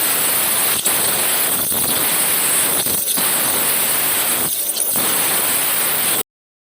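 Portable abrasive waterjet cutter running: a loud, steady hiss of the high-pressure jet, which cuts off suddenly about six seconds in.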